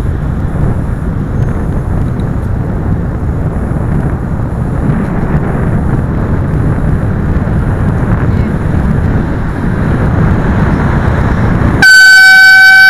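Wind and road rumble on a moving bicycle's camera, then near the end an AirZound compressed-air bicycle horn sounds one loud, high, steady blast for just over a second, cutting off sharply, as a warning to a car passing close.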